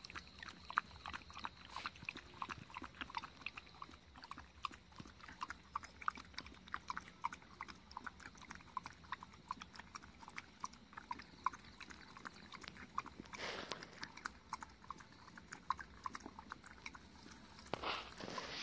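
Thirsty dog lapping water from a plastic mug: a steady run of wet tongue clicks, about three or four a second, with a short louder rush of noise about thirteen seconds in.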